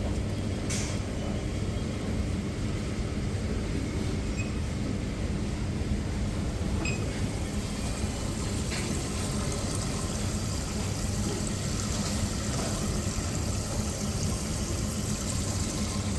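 Steady low rumble and hum of a vehicle in motion, with a few faint clicks.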